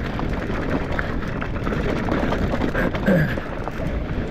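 Mountain bike rolling fast down a dirt trail: steady tyre noise on loose gravel and rock with a constant clatter of small knocks and rattles from the bike, and wind rumbling on the mic.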